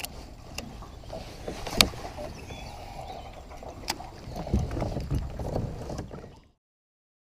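Pedal-drive kayak under way: water washing along the plastic hull, with a few sharp knocks of gear against the hull and a louder low rumble near the end before the sound cuts off suddenly.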